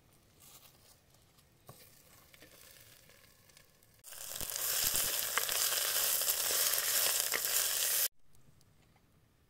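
Chopped fresh herbs sizzling loudly as they fry in oil in a pot, stirred with a wooden spoon. The steady sizzle starts suddenly about four seconds in and cuts off abruptly about four seconds later, after only faint sounds and a light knock.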